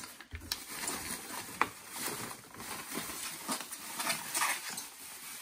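Bubble wrap and plastic packaging rustling and crinkling as a wrapped part is handled and lifted out of a cardboard box, with a few sharp crackles.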